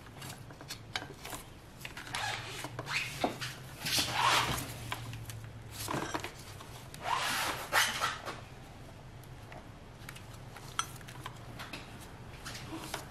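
Rubbing, scraping and light clicks of gloved hands handling a fuel rail and its injectors as they are fitted back onto a Toyota 2ZR engine. The noises come in a few louder bursts, about two, four, six and seven to eight seconds in.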